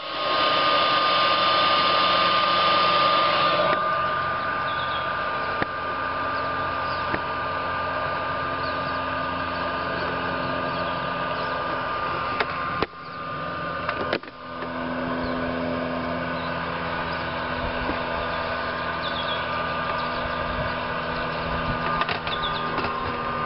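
Handheld electric heat gun running steadily, a blower whine over a motor hum, aimed at the jet ski's exhaust thermocouple. It is louder and hissier for the first few seconds, and the sound dips briefly twice about halfway through.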